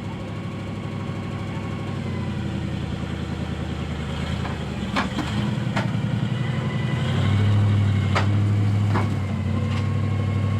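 Off-road truck engine running at a steady idle, getting louder and working a little harder past the middle. Several sharp clicks or knocks come through about halfway in and again near the end.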